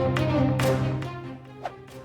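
Background music with a steady low sustained note and regular percussive hits, dropping much quieter about a second and a half in.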